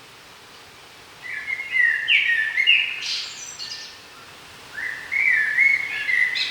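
A songbird singing two song phrases of about two and a half seconds each, the second starting about five seconds in, each phrase a run of quick notes that ends in a brighter, higher flourish.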